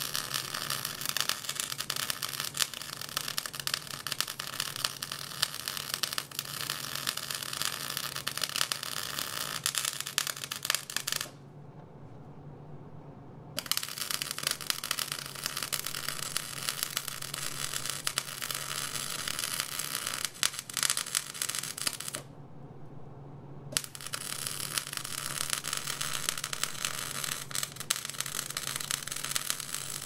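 Arc welding on a trailer hitch: the arc's steady crackling sizzle, stopping twice for a second or two, about eleven seconds in and again about twenty-two seconds in, then starting up again. A low steady hum carries on underneath, through the pauses too.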